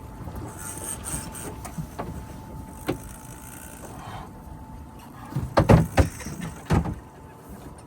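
Fishing reel being cranked under heavy load against a big amberjack, with a faint steady whine and scattered clicks, then a cluster of loud knocks about five and a half to seven seconds in.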